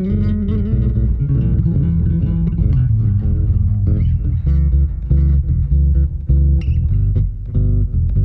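Solo electric bass music from a 1975 Fender Jazz Bass through a Gallien-Krueger amp: a continuous run of plucked notes, a steady low bass line with higher melodic notes sounding over it.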